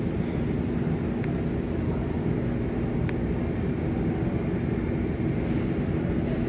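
Jet aircraft engines running at the airport: a steady low rumble with a faint hum.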